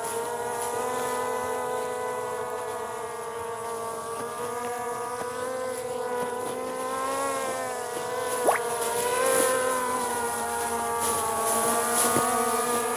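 Skydio 2 quadcopter's propellers whining steadily, the pitch wavering slightly up and down as the motors adjust while it hovers and tracks. A brief sharp sound stands out about two-thirds of the way through.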